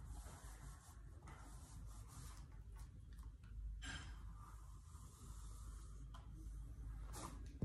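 Faint soft rustling strokes of a heated straightening brush's bristles being drawn down through long hair, with a low steady hum underneath.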